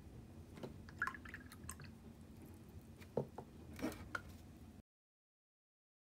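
Faint small taps and wet squishy sounds of a watercolour brush splattering dark paint, then being dipped into a water cup, before the sound cuts off abruptly about five seconds in.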